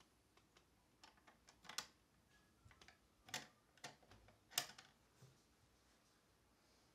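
A dresser's hanging drawer pull clacking against the wooden drawer as a baby's hand lifts and drops it: a string of irregular clicks and knocks, with a few louder ones in the middle.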